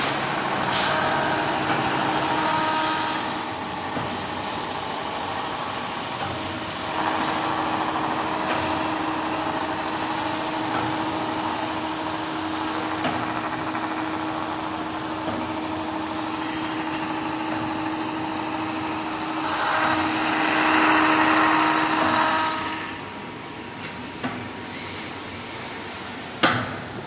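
Automatic board edge sanding machine running steadily with a held hum as it sands the edge of an MDF board. The noise grows louder for a couple of seconds about two-thirds of the way through, then drops off, and two sharp knocks come near the end.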